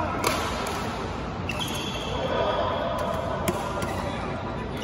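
Badminton racket strikes on a shuttlecock during a rally, sharp cracks a second or two apart, with sneakers squeaking on the court floor in a large hall.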